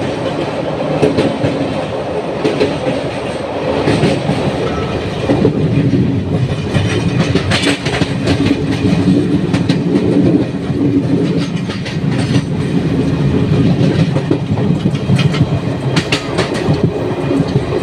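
Ranchi–Varanasi express train running at speed, heard from on board: a steady rumble of the coaches with the irregular clicks and clatter of the wheels on the track.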